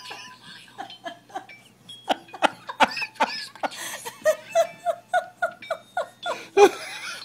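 A person laughing in a run of short repeated bursts, about three a second, starting about two seconds in.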